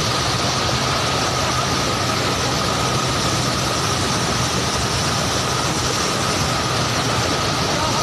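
An engine running steadily, with a constant high whine and a wash of noise over it.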